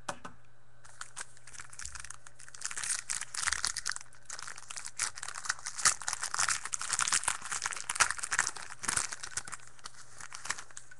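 The wrapper of a pack of football trading cards being torn open and crinkled by hand: a dense run of crackling from about a second in until near the end.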